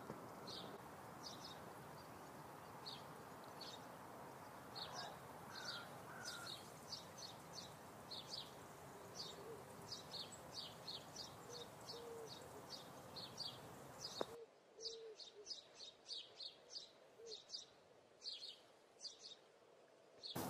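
Birds chirping: a steady run of short, high chirps, two or three a second, with a few low soft notes among them. A faint steady outdoor hiss under them cuts out abruptly about two-thirds of the way through while the chirping carries on.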